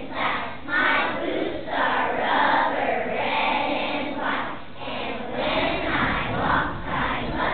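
Choir of young children singing a song together.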